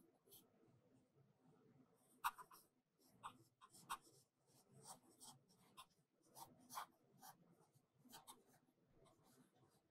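Faint, irregular light taps and scratchy scrapes as baking soda is poured from a plastic container, with a metal spatula helping, into a glass beaker.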